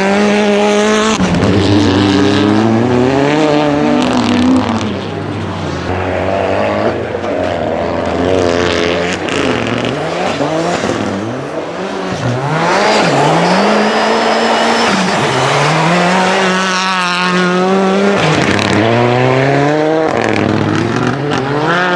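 Renault Clio N5 rally car's engine revving hard through the gears, its pitch climbing and dropping again and again, with a quieter stretch of shorter revs in the middle.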